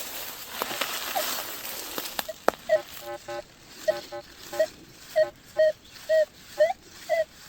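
Minelab Manticore metal detector giving short, warbling target tones, about two a second, from a little over two seconds in, as the coil sweeps over a signal mixed in with iron. The user says this could be a coin or could be falsing.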